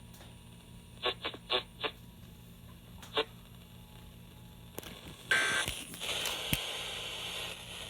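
Emergency Alert System digital data bursts heard over FM radio. A few short blips come first, then about five seconds in a loud, harsh buzzing screech of the data tones sets in, marking the end of the test message.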